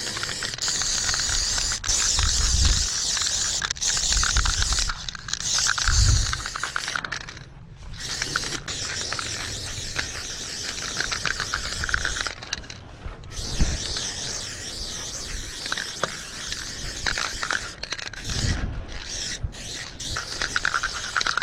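Aerosol spray-paint can hissing in long strokes, broken by short pauses, with a few low thuds in between.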